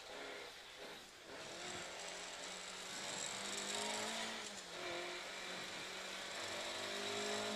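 Ford Escort Mk2 rally car's BDG twin-cam four-cylinder engine, heard from inside the cabin as the car comes off the throttle for a hairpin and then accelerates out, the pitch climbing steadily. Its note drops briefly about four and a half seconds in, then rises again.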